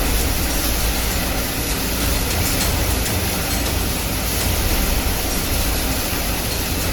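A copper-wire nugget plant is running: a steady, dense mechanical noise over a low rumble, with no single strikes standing out.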